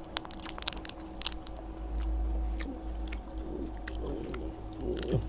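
Crispy oat snack (D'Loops Crispy Oats) being chewed with the mouth close to the microphone: a quick run of sharp crunches that thins out after the first second or two.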